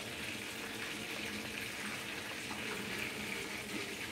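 Chicken drumsticks frying in oil on a low flame: a soft, steady sizzle with a faint even hum under it.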